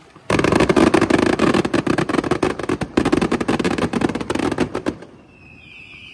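Fireworks: a sudden, loud, rapid rattle of many small bangs that cuts off about five seconds in, followed by a whistling firework whose whistle falls slightly in pitch.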